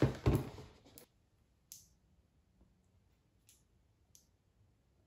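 Cardboard advent-calendar compartment rustling for about a second as a small candle is pulled out, then three faint, sharp clicks as the little candle jar is handled.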